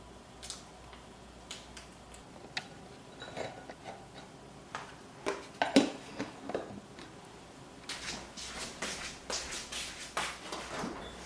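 Kitchen handling sounds: scattered light clicks and knocks of containers and dishes being picked up and set down, with a louder clatter about six seconds in and a quick run of clattering near the end.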